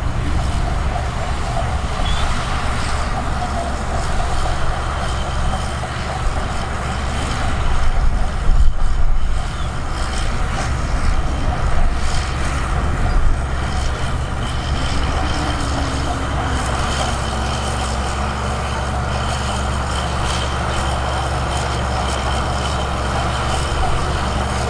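Heavy diesel earthmoving machinery running steadily, a deep engine drone, swelling louder for a moment about eight seconds in.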